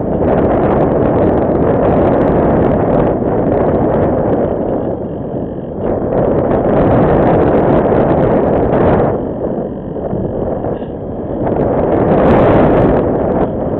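Wind rushing over the onboard microphone of a ParkZone Radian Pro radio-controlled glider in flight: a loud, rough rumble that swells and eases several times, dipping about five and ten seconds in.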